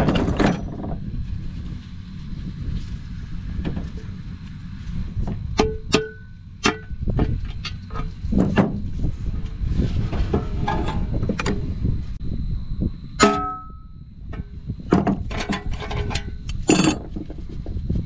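Steel parts of a combine header's auger end (bearing flange and sheet-metal end plate) being handled by hand. They give a few sharp metallic knocks and scrapes, the loudest about two-thirds of the way through with a short ring falling in pitch, over a steady low rumble.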